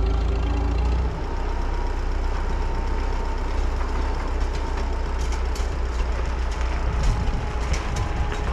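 Farm tractor engine running steadily with a deep hum, a little louder in the first second, with light clattering in the second half.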